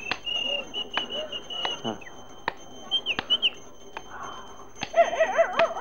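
Small birds chirping in short high calls, with a few sharp clicks. About five seconds in, a dog starts yelping, its wavering calls rising and falling in pitch and louder than the birds.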